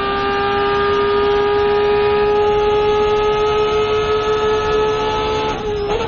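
A loud vehicle horn held in one long steady blast, a single pitch with many overtones, sagging slightly in pitch. It breaks off about five and a half seconds in, and rougher, uneven noise follows.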